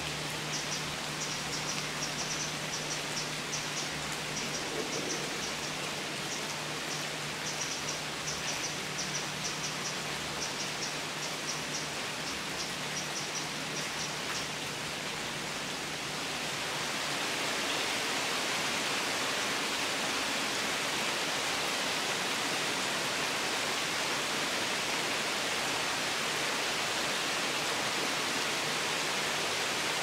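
Steady rain falling through the foliage of trees. A little past halfway it grows heavier and louder. During the first half a run of short, high chirps repeats over the rain, and a faint low hum runs underneath.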